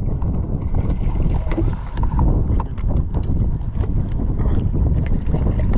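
Wind buffeting the microphone over water slapping and splashing against the side of a fishing boat, a steady low rumble with a few light clicks and knocks.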